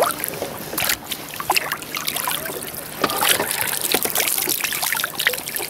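Lake water splashing and dripping at the side of a kayak, a run of irregular sharp splashes, as a small brook trout is released at the surface and kicks away.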